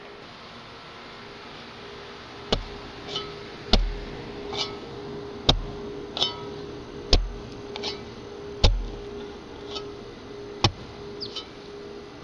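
Footsteps of someone walking slowly. From about two and a half seconds in, a sharp knock with a low thump lands roughly every one and a half seconds, with a softer scuff between each pair. A steady hum runs underneath.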